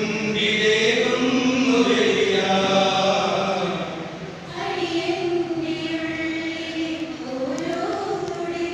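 Mixed choir of men and women singing together, holding long notes that step from pitch to pitch, with a short pause for breath about halfway through.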